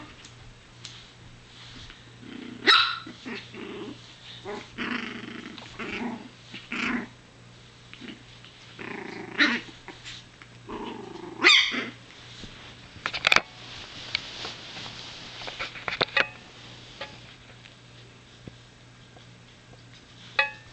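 Chihuahua puppy growling and giving small barks in play, in a string of short bursts over the first twelve seconds or so. After that it is mostly quiet, with a single sharp click a little past the middle.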